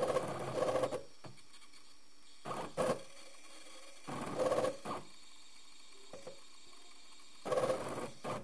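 CNC milling machine's stepper motors whining and buzzing in short bursts as the axes move the drawing pen, five moves of about a second or less with pauses between, over a steady faint high-pitched hum.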